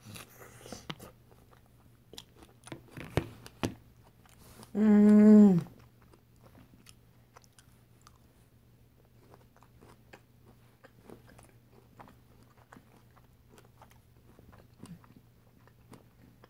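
Close-up eating sounds of biting into a chocolate-covered strawberry: a run of sharp bite clicks in the first few seconds, then quieter scattered chewing. About five seconds in, a single hummed "mmm" of enjoyment that falls in pitch at its end.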